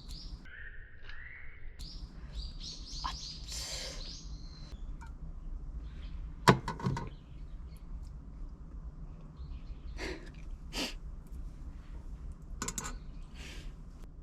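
Small birds chirping in short stepped notes for the first few seconds, then a single sharp click or knock about six and a half seconds in, followed by a few fainter short clicks or chirps.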